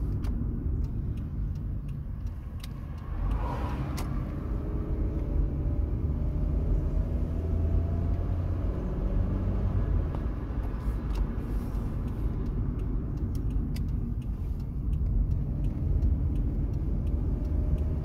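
Hyundai Accent's 1.6 MPI four-cylinder engine and road rumble heard from inside the cabin while driving, the engine pitch rising twice as the car accelerates, with scattered light clicks. The car is running with a faulty coil pack that makes it misfire under load.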